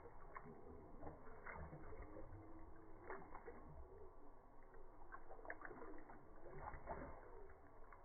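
Faint, slowed-down sound of a drinking fountain's water stream and a Bullmastiff lapping at it: scattered low-pitched clicks and splashes.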